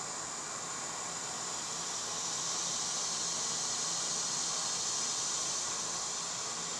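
Steady, high-pitched drone of an insect chorus, swelling slightly in the middle and easing off again.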